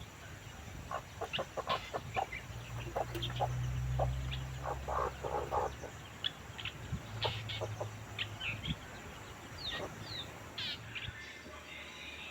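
Birds calling and chickens clucking: many short, scattered calls and chirps, over a low rumble that comes and goes.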